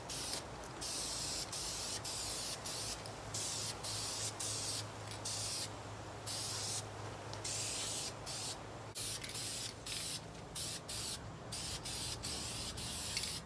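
Aerosol can of VHT high-temperature primer spraying in a long run of short hissing bursts, each a second or less, with brief breaks between them. It is laying a medium wet coat onto a turbo exhaust manifold.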